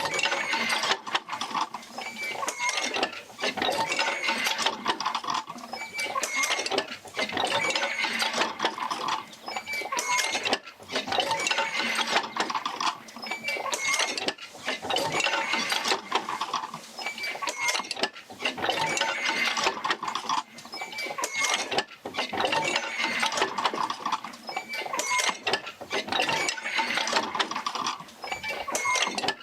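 Oil-field field wheel rocking back and forth on its hub as it drives jerker lines out to several pumps: metal squeaking and clanking that swells and dips in a regular cycle of about three and a half seconds.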